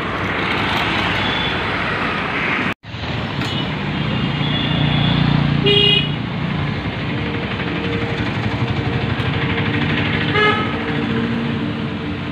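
Street traffic with engines running and two short vehicle horn toots, about six seconds in and again near ten seconds. The sound drops out for an instant near three seconds.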